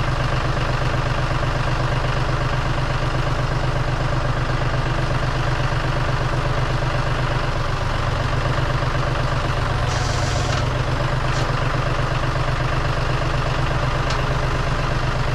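Engine idling steadily with an even low hum and pulse, a brief hiss about ten seconds in and a couple of light clicks near the end.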